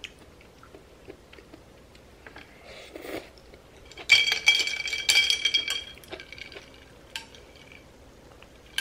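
Eating utensils clinking against dishes during a meal. About four seconds in, a clink rings on for about two seconds, with a second strike a second later and a few lighter taps after it.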